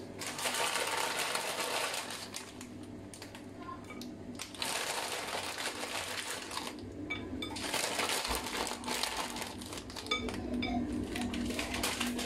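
Dry croutons being shaken out of a plastic packet onto a salad, rattling and crinkling in three spells.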